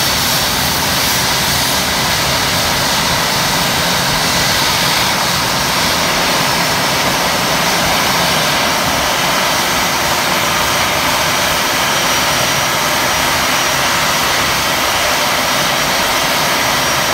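Brand-new CFM56 turbofan running steadily at ground idle: an even, loud rushing noise with a faint high whine over it.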